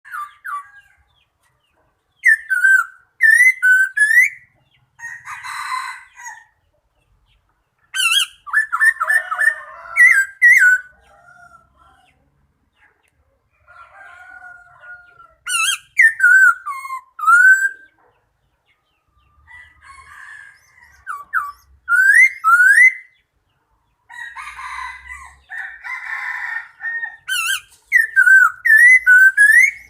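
Bird calls: repeated bouts of clear whistled notes that slide up and down, with quick trills. Harsher rasping calls come in between, and short pauses separate the bouts.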